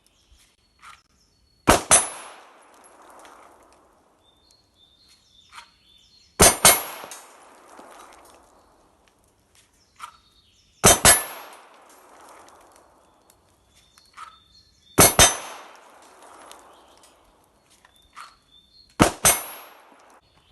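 Pistol fired in quick double taps, five pairs about four seconds apart, each pair trailed by a ringing echo. Before each pair come a short high beep and a faint click.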